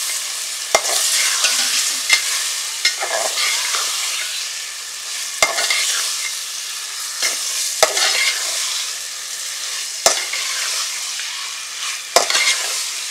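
Gulsha and gutum river fish frying with onion and spices in a metal pot, sizzling steadily, while a metal spatula stirs them. The spatula scrapes and knocks sharply against the pot about seven times at irregular intervals.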